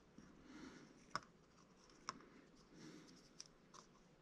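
Near silence with soft scraping and a few small sharp clicks, the two strongest about a second and two seconds in, as a slim metal sculpting tool works Monster Clay on a small model rifle barrel.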